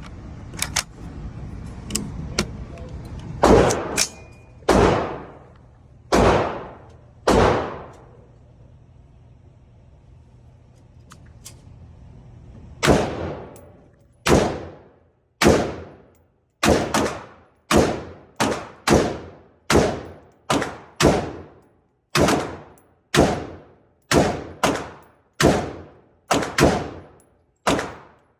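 AR-15 rifle being fired semi-automatically, each shot sharp with a short echoing tail. Four spaced shots, then after a few seconds' pause a steady string of rapid shots, about one to two a second.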